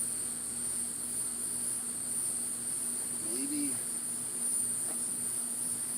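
Honey bees humming steadily around an open hive box, over a constant high-pitched insect trill like crickets.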